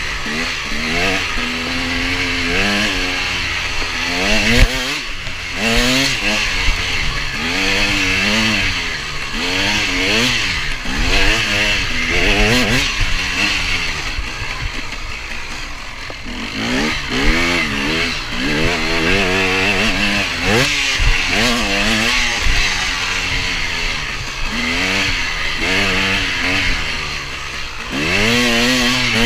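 KTM 250 EXC two-stroke dirt-bike engine revving hard, its pitch climbing and dropping again and again as the throttle is worked through the gears, over steady wind rush on the microphone. A sharp thump comes about four and a half seconds in.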